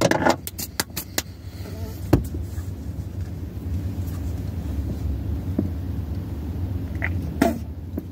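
Steady low rumble of a car heard inside its cabin, with a run of sharp clicks in the first second or so, a louder knock about two seconds in and a brief scuffle near the end.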